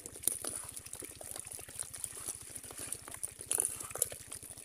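A pile of live, freshly caught small fish flapping and flipping against one another, making an irregular wet patter of small slaps.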